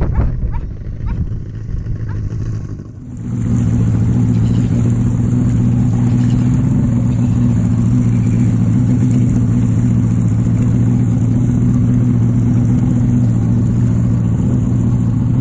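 A boat's engine running, a low steady drone that jumps louder about three seconds in and then holds steady, with a hiss over it.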